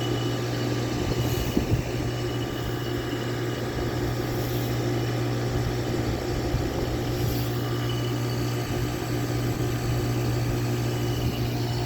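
A 3-ton SureComfort SP14 heat pump's outdoor unit running through a defrost cycle, a steady low hum with a few fixed higher tones over it.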